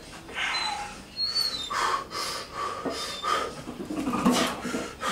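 A weightlifter breathing hard in short, forceful breaths, about one a second, while bent over a 220 kg deadlift bar, bracing before the pull.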